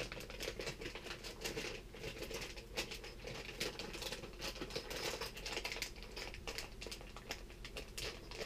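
Plastic fishing-lure packaging crinkling and rustling in the hands, with many small irregular clicks and taps.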